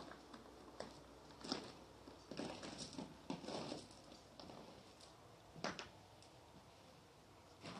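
Faint, irregular footsteps crunching on gravel, a scattered handful of steps with a pause partway through.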